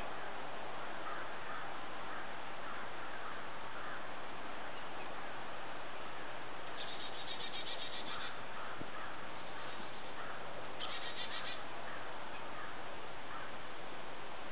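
Northern cardinal singing: two short phrases of fast repeated notes, about seven seconds in and again about eleven seconds in, over a steady hiss with faint chirps of other birds.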